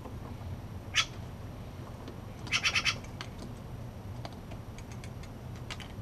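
Steller's jay calling: one short call about a second in, then a quick run of four calls about a second and a half later. A few faint taps follow.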